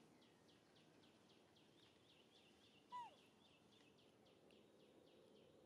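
Faint bird calling outdoors: a fast run of short, high, falling notes, about four a second, with one louder call sliding down in pitch about three seconds in.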